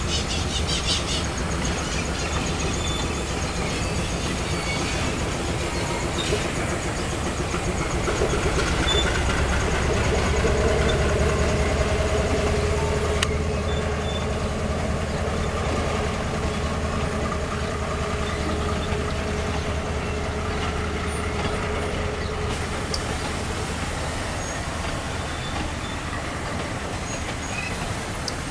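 GE U20C-MP diesel-electric locomotives passing close by, their engines running with a steady low drone and a humming whine that swells as they go by and stops about two-thirds of the way through. Near the end, empty ore hopper wagons roll past on the rails.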